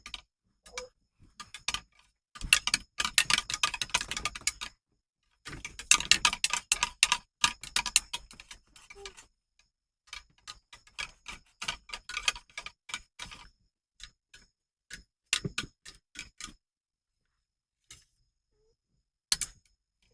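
Rapid, irregular clicking and tapping: two dense runs of clicks lasting about two seconds each, then scattered single clicks, with one last click near the end.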